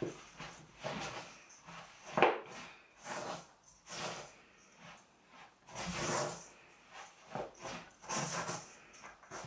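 Malted cookie dough being mixed in a bowl: irregular rubbing strokes, with one sharp knock about two seconds in.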